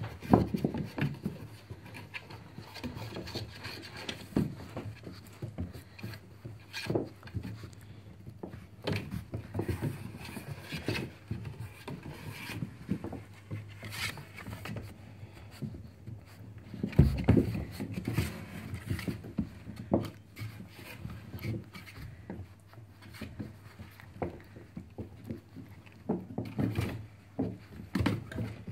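Labrador puppies scrambling and wrestling on bedding in a wooden box: scratching, rubbing and irregular knocks against the wooden walls, with a heavier bump just past the middle.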